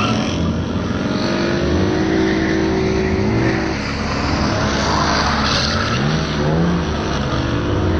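Drift cars' engines revving up and down under hard throttle while their tyres squeal and skid, more than one engine heard at once, with rising rev swoops in the second half.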